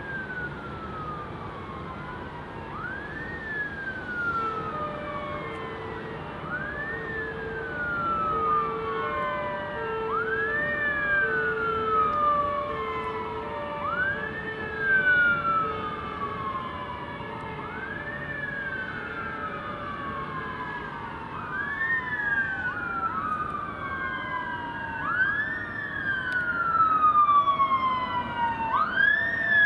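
Fire engine sirens wailing, each cycle a quick rise and a slower fall repeating every three to four seconds. A second siren joins out of step about two-thirds of the way through and grows louder toward the end. A lower two-note tone alternates underneath through the first half.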